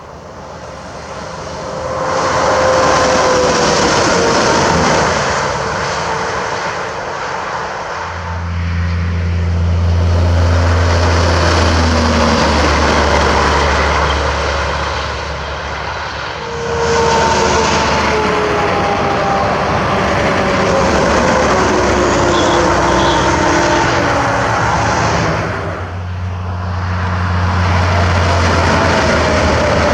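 Semi trucks passing one after another on the highway: diesel engine and tyre noise swell and fade, and the engine note drops in pitch as each one goes by. Between the passes a deep, steady engine drone rises and falls away.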